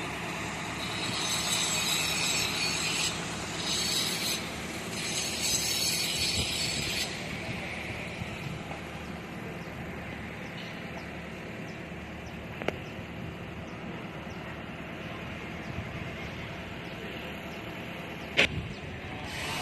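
Construction-site machinery: an engine running steadily, with a hissing noise for the first several seconds and two sharp knocks later on.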